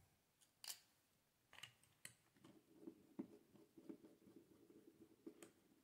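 Faint, scattered clicks of small parts, then from about two and a half seconds in a faint, uneven run of low rasping creaks as a screwdriver drives a screw into a plastic RC helicopter frame.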